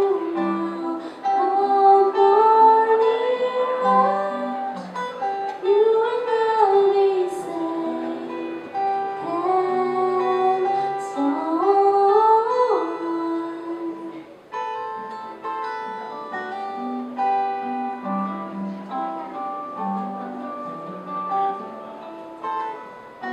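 A woman singing a slow ballad over fingerpicked acoustic guitar; about two-thirds of the way through the voice stops and the acoustic guitar plays on alone, picking single notes.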